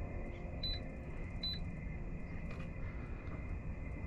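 Two short high beeps, about half a second apart near the start, from a Lowrance Elite FS9 chartplotter's key presses as the radar is switched out of standby, over a steady background hum.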